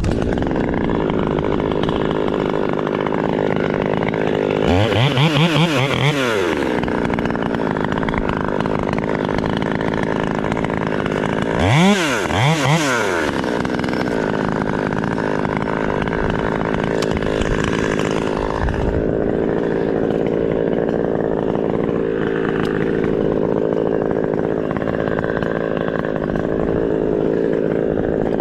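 Gasoline chainsaw running steadily, revving up and back down twice, about five seconds in and again about twelve seconds in.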